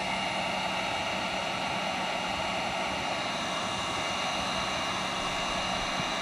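Electric heat gun running steadily: its fan blowing with a faint motor whine, shrinking heat-shrink tubing over a soldered wire splice.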